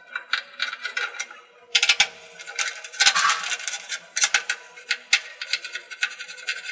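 A hex driver clicks rapidly in short bursts, about six times, as 4 mm Allen head screws are backed out of the cowling of an Agilent IDP15 dry scroll pump.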